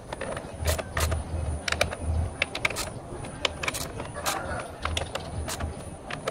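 Socket wrench clicking in quick, uneven runs as the 10 mm ignition coil hold-down bolts on a BMW M52 engine are tightened back down, with the engine off.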